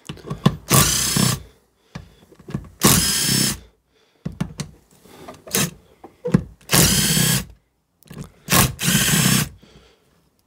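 Cordless drill-driver with a socket spinning bolts out of a Rover K-series cylinder head, run in short bursts: four main runs of its motor whine, each under a second, with brief blips and pauses between.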